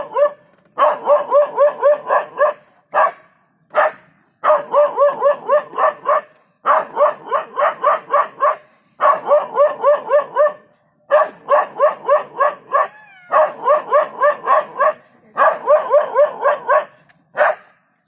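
Dog barking at a leopard in alarm: quick runs of about five barks a second, each run lasting one to two seconds, with short pauses and a few single barks between them.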